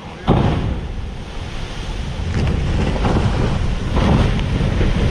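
Strong wind buffeting the microphone, a loud, steady rushing rumble that jumps up about a third of a second in.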